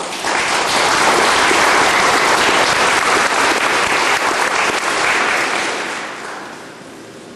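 An audience applauding, dense and steady, fading away about six seconds in.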